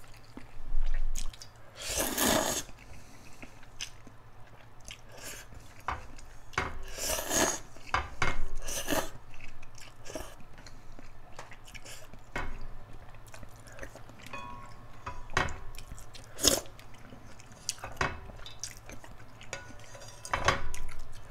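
Slurping shrimp ramen noodles and chewing, with several short slurps spread through, and sharp clicks of chopsticks and a wooden ladle against the pot, most of them in the second half.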